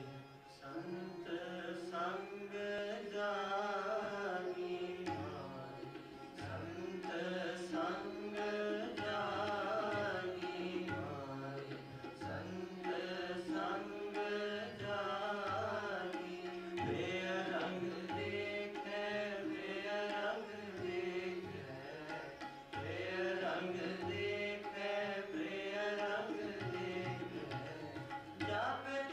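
Gurmat Sangeet kirtan in Raag Kedara: tabla keeps a steady rhythm under sustained harmonium notes and a gliding, ornamented melody line.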